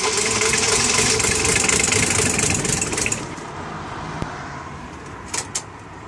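Starter cranking a cold diesel engine for about three seconds without it catching, then stopping. A few sharp clicks follow near the end.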